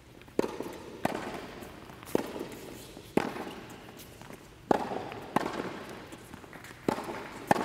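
Tennis ball being struck by rackets and bouncing on a hard court during a rally: about eight sharp pops at uneven intervals, each echoing in the indoor tennis hall.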